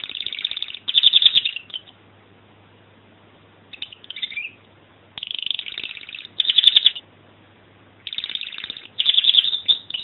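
Domestic canary singing: fast trilled phrases in four bursts with short pauses between them.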